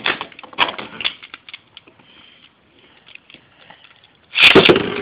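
Beyblade spinning tops clattering against each other and the walls of a clear plastic stadium: a quick run of sharp clicks and knocks, then fainter scattered ticks, then a loud burst of clattering near the end.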